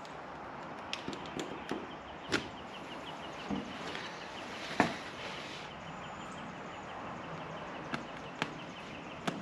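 New car carpet being handled and laid over a bare steel floor pan: scattered soft knocks and taps, the loudest about halfway through, over a steady background hiss.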